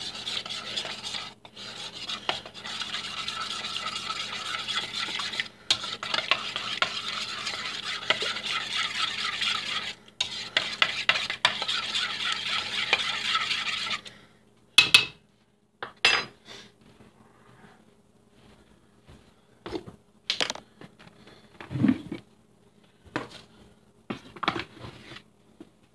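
Water and sourdough starter being stirred with a hand utensil in a mixing bowl: a steady scraping, swishing stir for about fourteen seconds with two brief pauses, then a handful of separate sharp knocks.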